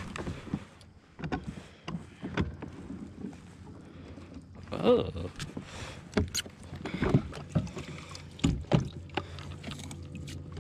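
Irregular knocks, clunks and clicks on the plastic hull of an Old Town Sportsman 106 pedal-drive fishing kayak as weed is cleared from its pedal drive. The loudest clunk comes about five seconds in.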